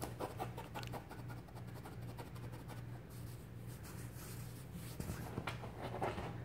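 Kitten scrabbling under a bedsheet: a quick run of light scratches and rustles of claws on fabric, a little louder near the end, over a steady low hum.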